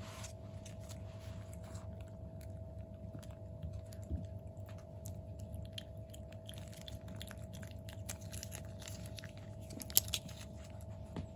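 Kittens eating, with chewing and lapping and many small clicks of teeth and tongue. One sharp click about ten seconds in.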